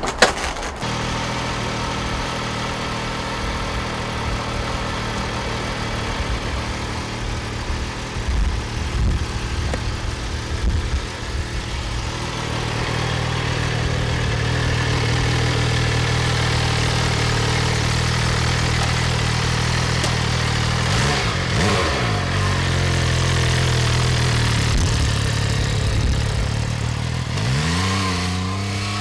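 Motorcycle engine catching just after the start and then idling steadily. It is revved briefly about two-thirds of the way through, and near the end it rises in pitch as the bike accelerates away.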